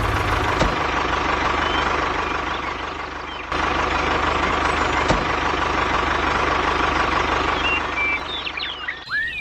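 An engine running steadily, as in an idling tractor, with abrupt jumps in the sound about three and a half seconds in and again near the end. A few short gliding chirps come in near the end.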